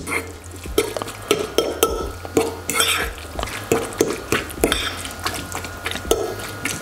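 Canned tuna and chopped parsley being mixed in a bowl: a utensil stirring through the wet mixture and clicking against the bowl about three times a second.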